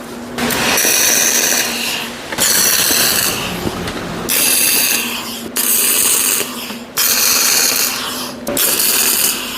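Electric arc welding on steel plate: the arc crackles and hisses in about six separate bursts of one to two seconds, with short pauses between, as reinforcement plates are welded onto a steel floor plate.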